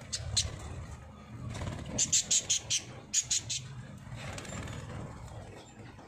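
Budgerigars chirping: a few single sharp chirps, then two quick runs of high, sharp chirps, about five and then three, a couple of seconds in, over a low steady hum.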